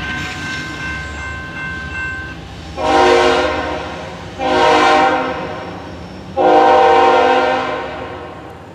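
Horn of a BNSF ES44C4 diesel locomotive sounding three blasts, the last one longest, over the low rumble of the departing engine. Before the horn, a crossing signal's steady ringing stops about two seconds in as the gates go up.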